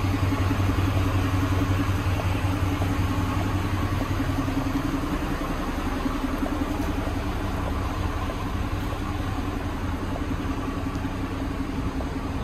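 A steady low mechanical hum holding one pitch, easing off slightly toward the end.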